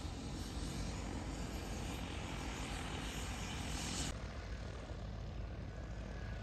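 T40 agricultural spreading drone's multiple rotors running with a steady hum as it flies over the paddy. About four seconds in, the high hiss drops off suddenly, leaving a fainter whine from the rotors.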